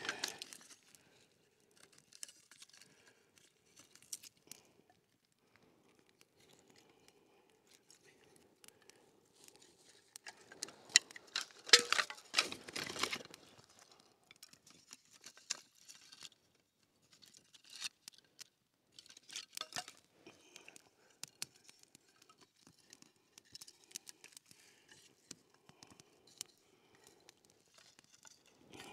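Small sticks and kindling being handled, snapped and laid on a newly lit campfire. Scattered dry cracks and rustles, with a dense flurry of snapping and crackling from about ten to fourteen seconds in.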